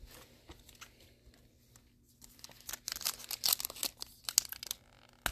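A soft knock, then the foil wrapper of a trading-card pack crinkling and crackling as it is handled, densest and loudest from about two seconds in until near the end.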